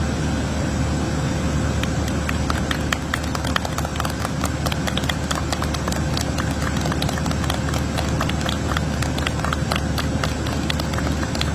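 Camera shutters clicking rapidly and irregularly, many at once, starting about two seconds in, over a steady low hum with a faint whine.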